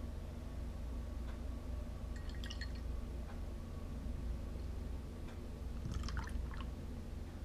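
Beer poured from an aluminium can into a glass pint glass: liquid running and dripping into the glass, with light clinks about two seconds in and again near six seconds.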